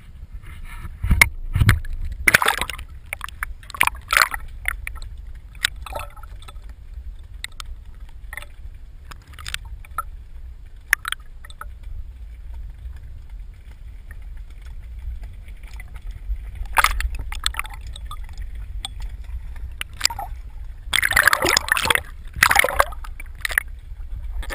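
Sea water sloshing and splashing around a GoPro as it bobs at the surface and dips under, with a steady low rumble of water on the camera housing. Sudden splashes come about a second in, around four seconds, and in a cluster near the end.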